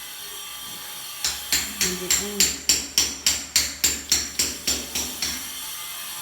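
Rapid, even hammer blows, about three to four a second, with a bright ringing on each strike. They start about a second in and die away after about four seconds.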